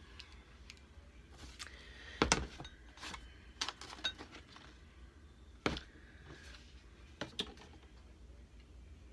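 Small makeup items and containers clicking and knocking as they are picked up and moved around on a crowded vanity. Scattered sharp clicks, the loudest about two seconds in and again near six seconds.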